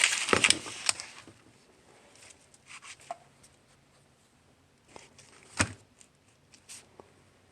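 Sheets of sandpaper being handled: crinkling paper in the first second, then a few scattered light rustles and taps, with one sharper click about five and a half seconds in.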